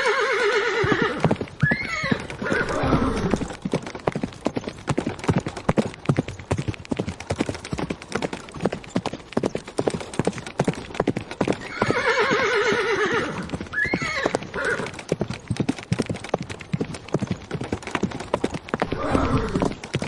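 Horse-drawn chariot on the move: hooves clattering in a fast, dense rhythm throughout. A horse whinnies at the start, again about twelve seconds in, and once more near the end.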